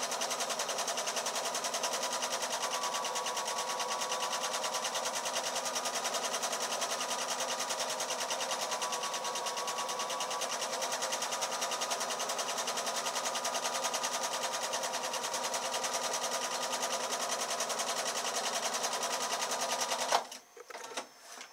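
Electric domestic sewing machine stitching a seam, running steadily at an even speed with its rapid needle strokes. It stops suddenly about a second before the end, followed by a couple of small clicks.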